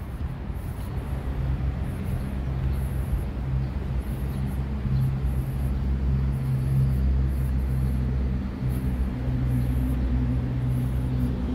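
Steady low hum and rumble of a moving road vehicle, a little louder about five seconds in with a brief dip near the end.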